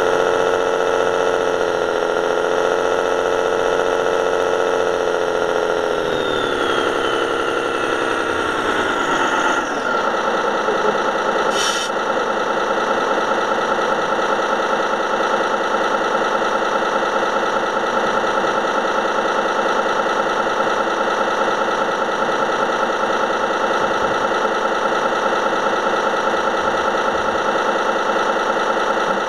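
Radio-controlled model truck's sound module playing a truck engine: running at raised revs that fall away to a steady idle between about six and ten seconds in. A short click about twelve seconds in.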